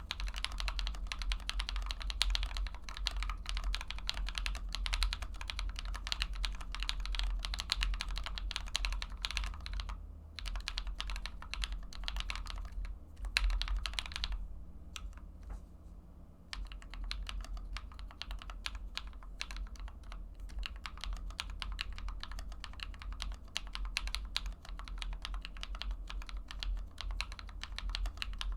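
Typing on a GMMK Compact mechanical keyboard with Akko CS Matcha Green linear switches lubed with 205g0, in a case filled with foam and tape mods, with stock keycaps: a fast, steady stream of keystrokes. About a third of the way in, it thins to a few scattered presses for several seconds, then the steady typing resumes.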